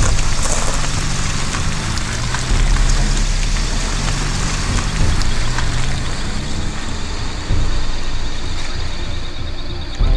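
A small pickup truck's engine running as it pulls away and drives off, getting louder in two steps about two and a half and seven and a half seconds in.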